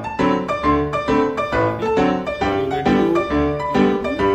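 Background instrumental music, a piano-like melody of evenly paced notes.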